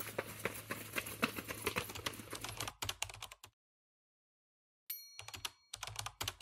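Keyboard typing sound effect: rapid key clicks that stop about three and a half seconds in. After a silent gap a short high ding rings out, and the key clicks start again.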